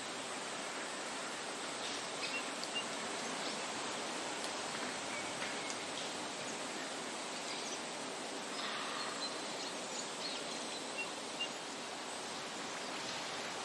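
Steady outdoor rushing ambience, with a few faint, short bird chirps scattered through it, some in quick pairs.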